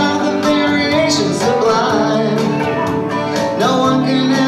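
A small live band playing a country-style song in G: singing over plucked guitar.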